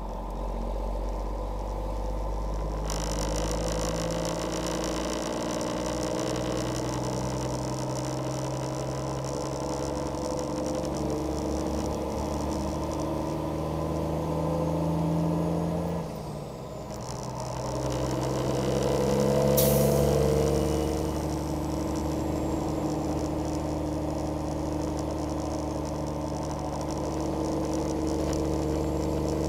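Truck engine running in the cab while driving, with road noise. Its pitch steps as it goes, with a brief drop and rise past the middle like a gear change, and a short sharp click or hiss about twenty seconds in.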